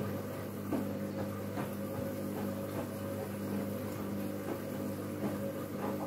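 Candy front-loading washing machine tumbling laundry in its wash phase: a steady motor hum with soft knocks now and then as the clothes turn over in the drum.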